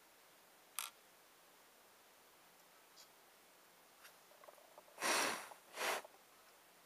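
Small parts being handled on an aluminium heatsink: a sharp click about a second in, a few light ticks, then two short scraping rustles close together near the end, the first longer and louder.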